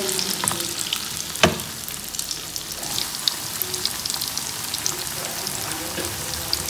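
Corn fritters sizzling in hot oil in a wok, with a steady hiss and many small crackling pops. A single sharp knock comes about a second and a half in.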